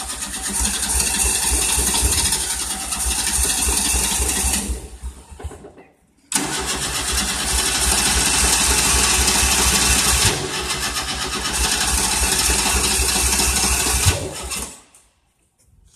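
Starter cranking the engine of a 1988 Tennant 255 Series 2 sweeper in two long bursts, about five and eight seconds, with a short silence between, the engine turning over but not catching. It is a crank-no-start, which the owner suspects is the engine having jumped timing from a loose belt.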